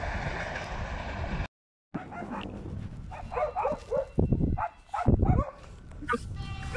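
A freight train of covered hopper wagons rolls past with a steady rumble and clatter of wheels on rail, then cuts off abruptly about one and a half seconds in. After a short silence come a run of short calls and a few loud, low thuds.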